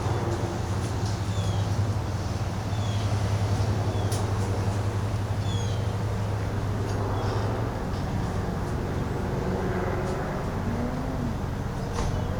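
Small propeller airplane engine droning steadily overhead, its note changing about eight seconds in. Short, high, falling bird chirps sound several times.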